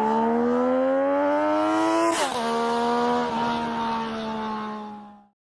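Triumph Daytona 675's three-cylinder engine accelerating, its pitch climbing steadily. About two seconds in the pitch drops sharply at a gear change, then holds steady and fades out near the end.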